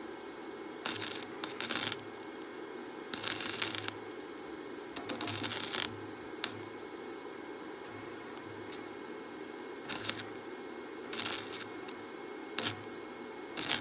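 Electric welder making short welds: about eight separate bursts of arc crackle with a buzz, each half a second to a second long, over a steady hum.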